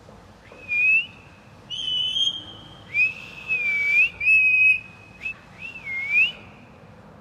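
Ringneck parrot whistling a run of clear notes, some held level and some swooping down and back up.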